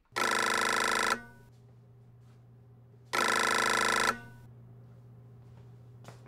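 Push-button desk telephone ringing: two rings, each about a second long, about two seconds apart.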